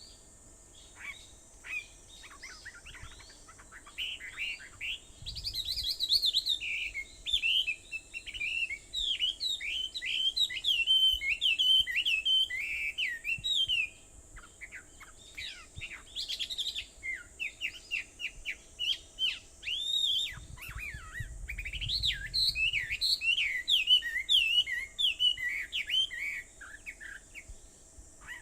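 Wild songbird singing a long, rapid warbling song of quick varied chirps, in two runs of several seconds each with scattered single calls between.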